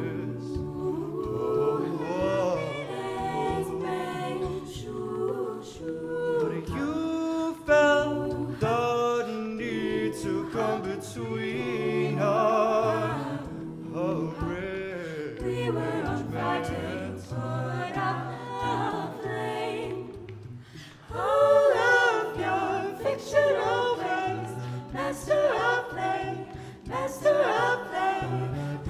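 A cappella group singing in close harmony, with a beatboxer's vocal percussion clicking under the voices. The voices drop back briefly about two-thirds of the way through, then come back louder.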